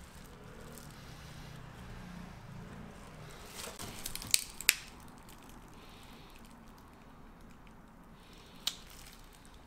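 Handling noises at a crepe stall: a few sharp clicks and taps, two of them close together about halfway through and one more near the end, over a low steady hum.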